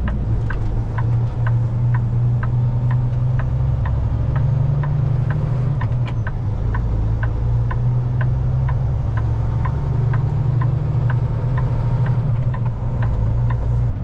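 Semi truck's diesel engine idling steadily, heard from inside the cab, with the turn signal clicking evenly, about three clicks a second, as the truck waits to pull out.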